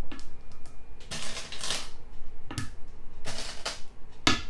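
Go stones being placed and handled on a board: a string of sharp clicks and clatters, the loudest near the end.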